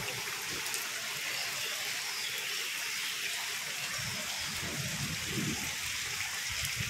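Steady hiss of rain falling on a wet, puddled rooftop floor and plant pots during a hailstorm, with faint scattered ticks.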